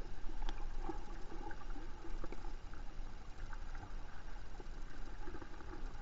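Underwater river ambience picked up by a submerged camera: a steady, muffled low noise of moving water with many small scattered clicks and pops.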